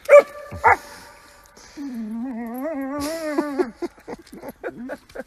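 Small spitz-type dog giving two sharp yips, then a long, wavering whine of about two seconds.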